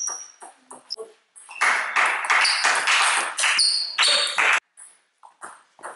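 Table tennis ball pinging sharply off bats and table during the last strokes of a rally, within the first second. Then comes a loud stretch of noise lasting about three seconds, broken into short segments, before it falls away.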